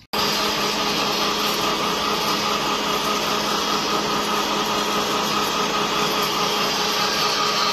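Small feed pellet mill running steadily, a loud, even mechanical hum and whir over a constant hiss that starts abruptly.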